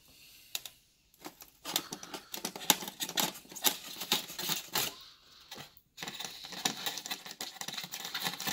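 Utility knife blade scoring a styrofoam cooler lid: a dense run of small crackling clicks and scratches as the blade is drawn through the foam. It starts about a second and a half in and breaks off briefly about five seconds in.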